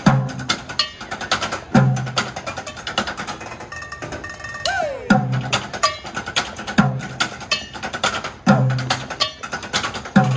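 Upbeat show music with a deep beat about every second and a half, overlaid with fast clattering percussion played on pots, pans and kitchen utensils. A swooping rise and fall in pitch comes near the middle.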